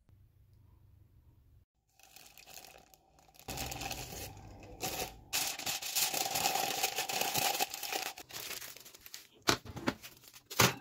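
Aluminum foil crinkling and tearing as corn tortillas are wrapped in it, a dense rustle that builds about two seconds in and runs for several seconds. A few sharp knocks follow near the end.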